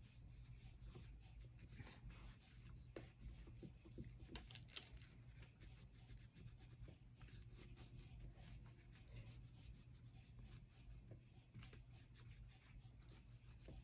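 Faint scratching of an oil pastel stroked across paper in short, irregular strokes, over a low steady hum.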